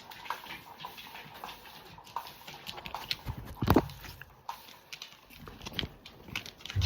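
A dog moving about on a hard floor, its claws ticking in irregular light clicks and taps, with one louder knock a little past halfway.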